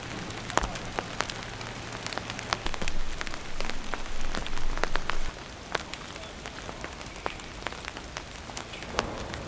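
Rain falling steadily, with many separate drops tapping sharply and irregularly; it grows louder for a couple of seconds in the middle.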